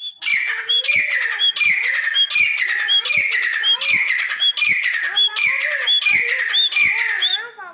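Grey francolin (desi teetar) giving its loud repeated call, about ten ringing phrases in a row, one roughly every three-quarters of a second, each with a sharp high whistled note.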